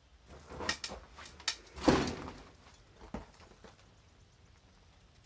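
Several knocks of old wood, then a louder, longer scraping creak about two seconds in, and one more knock a second later.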